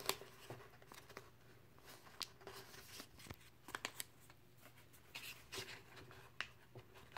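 Faint rustling and crinkling of paper being folded and pressed shut by hand over the end of a cardboard tube, with scattered small clicks.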